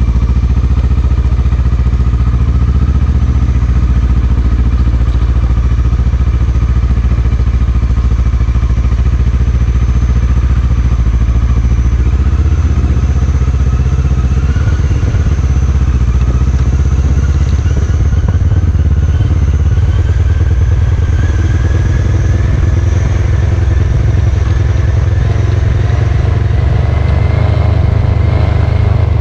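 Motorcycle engine running steadily while riding, its note slowly rising in pitch through the second half.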